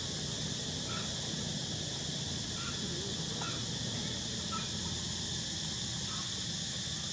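Steady high-pitched insect drone, with short faint chirps every second or so.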